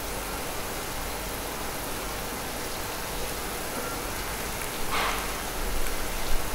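Takoyaki batter sizzling in the hot pan of a gas-fired takoyaki machine, a steady hiss as the balls are turned with bamboo skewers. A short, louder burst comes about five seconds in.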